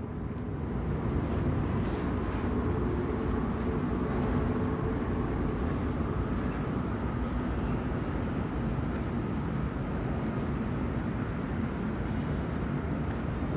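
Steady background rumble and hiss, with a faint low hum in the first few seconds.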